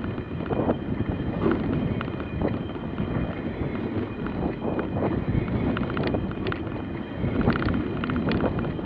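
Wind buffeting the microphone and water rushing past the hulls of a Nacra 20 FCS foiling catamaran sailing at speed. Irregular knocks and slaps come as the boat meets the chop, clustered about six seconds in and again near the end.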